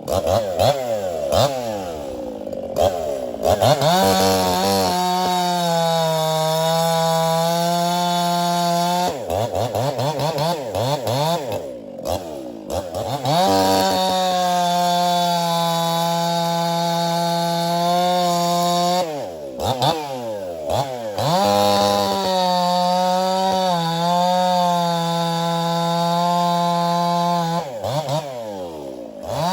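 Ported Echo CS-4910 two-stroke chainsaw cutting logs: the engine is revved up, then held at a steady pitch under load through three long cuts, with the throttle let off between them so the pitch falls and rises again.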